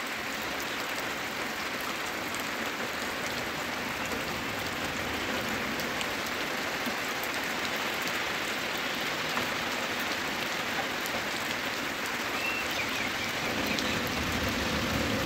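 Heavy rain falling steadily. Near the end the engine of a bus coming up the road grows louder.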